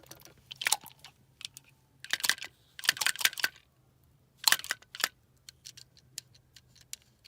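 Hard plastic clicks and rattles from a furnace condensate float switch being handled and worked by hand, in several short clusters with scattered light ticks between them. The switch's float is stuck and not rising as it should.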